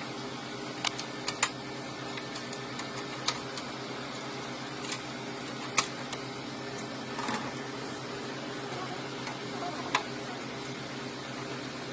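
Steady mechanical hum with sharp clicks and taps scattered through it, about eight in all, as of metal and plastic parts and tools being handled while an air conditioner is serviced and refitted.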